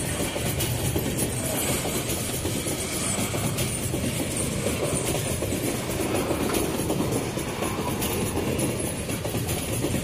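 Empty iron-ore freight wagons rolling past close by: a steady rumble of steel wheels on rail, with occasional clicks and clatter over the rail joints.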